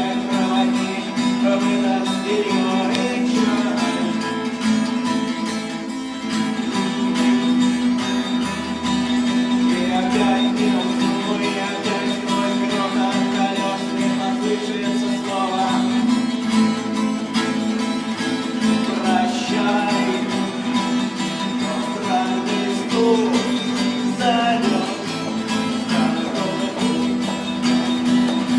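Acoustic guitar strummed steadily in a rock-song rhythm, with a melody line moving above the chords.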